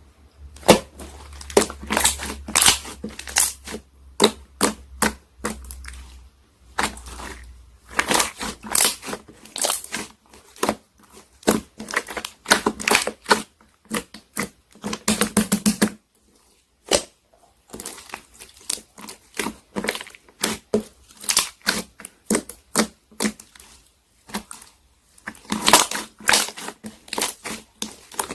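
Purple glitter slime being pressed and worked by hand, giving quick runs of sharp clicks and pops with short pauses between them.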